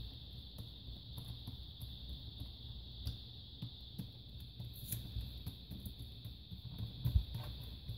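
Small clicks and taps of a screwdriver and screws against the plastic bottom case of an HP Pavilion DV6 laptop as its keyboard screws are driven back in, over a steady high hiss. A duller knock about seven seconds in is the loudest sound.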